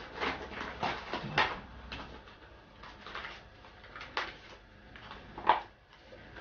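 Light clicks and knocks of kitchen items being handled on a table, with one sharper knock about five and a half seconds in.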